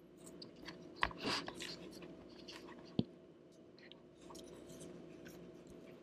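Faint clicks and scrapes of fingers working the thermal sensor cable's small plastic connector loose inside a 2009 iMac, with two sharper clicks about one and three seconds in.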